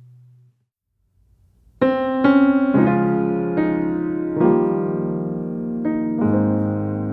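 Background piano music: after a brief pause, a new piece begins about two seconds in with struck notes and ringing chords.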